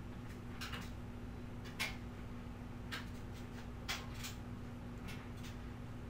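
A steady low hum with a few soft, sharp clicks about once a second.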